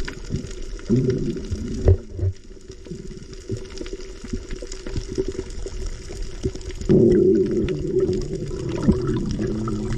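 Sea water sloshing and bubbling around the camera during a freedive, with a louder low hum that comes in briefly about a second in and again for the last few seconds.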